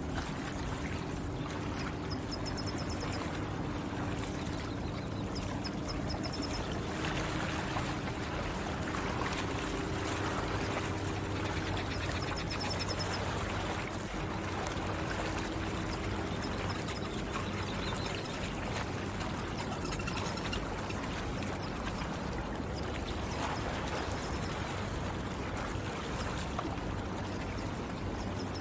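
Lake water trickling and lapping steadily, with a bird giving short, high chirps a few times.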